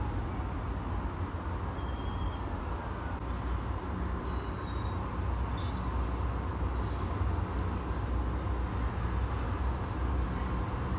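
Steady low background rumble with no clear source, with a faint light click a little past halfway.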